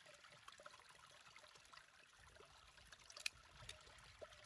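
Faint trickling of paddy water, with small ticks and one sharp click a little over three seconds in.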